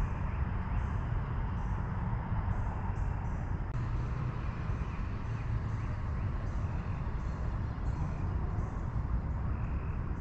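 Steady low rumbling outdoor ambience at a riverbank, with a faint high-pitched insect chirp repeating roughly every half second.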